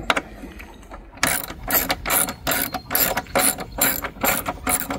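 Hand socket ratchet on an extension, clicking as it turns a bolt in the tractor's dash side panel. After a single click at the start, it settles about a second in into quick back-and-forth strokes, three or four a second.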